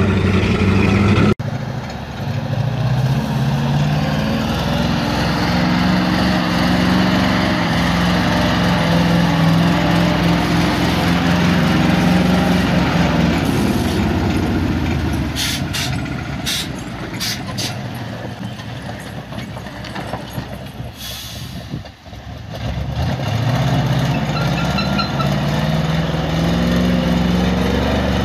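Heavy six-wheel-drive army truck engines (ZIL-131 and Ural type) labouring off-road, the engine note rising and falling as they pull through snow and mud. A few sharp knocks sound around the middle.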